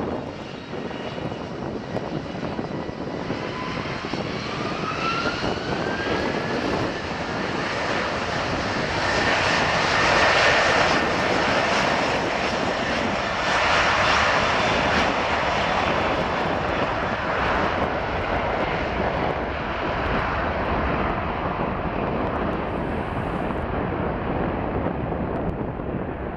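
Airbus A330-200 twin jet engines on the take-off run. A whine rises in pitch over a few seconds as the engines spool up to take-off thrust, under a loud jet roar that is strongest as the airliner passes, about ten to fourteen seconds in, then eases a little as it moves away down the runway.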